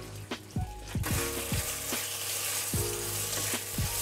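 Thin slices of beef sizzling in hot oil in a nonstick frying pan as they are stir-fried; the sizzle grows louder about a second in.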